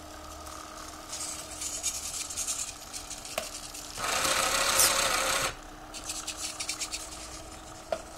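Small servo motors in a homemade robot arm buzzing and whirring in bursts as the arm moves, loudest for about a second and a half in the middle. A faint steady hum runs underneath, with a couple of short clicks.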